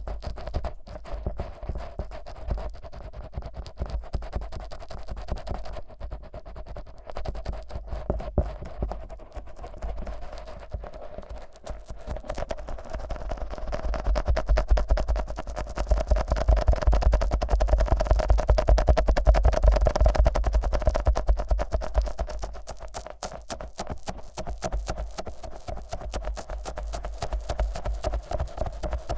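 Fingers thick with Vaseline rubbing and squelching over the silicone ears of a 3Dio binaural microphone, a dense run of sticky, rapid strokes with a deep muffled rumble as the hands press over the ears. The rubbing grows louder partway through, then turns into a quicker, more even stroking near the end.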